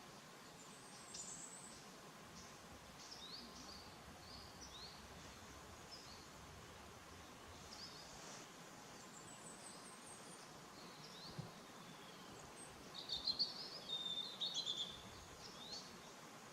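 Small birds chirping and singing, a scattered series of short high calls, with a louder spell of quick twittering near the end. Under them is a faint steady background hiss.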